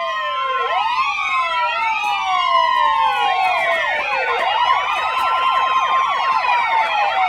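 Several emergency-vehicle sirens wailing at once, their tones sliding up and down and overlapping. They come in abruptly just before the start.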